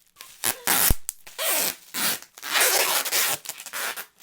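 Sticky tape being pulled off the roll in several rasping strokes, the longest near the end, with a sharp click about a second in.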